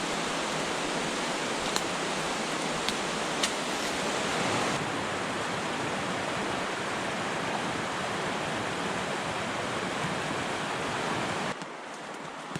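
Rushing water of a mountain river: a steady, even hiss of flowing water, with a few faint clicks in the first few seconds. About eleven and a half seconds in it drops abruptly to a quieter, duller rush.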